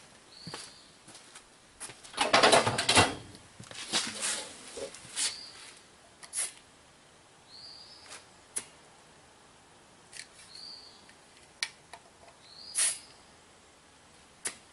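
Scattered clicks and handling knocks, with a brief hiss of air about two seconds in as a tire pressure gauge is pressed onto the valve stem of an underinflated tire. Short high chirps, like a small bird's, come back every few seconds.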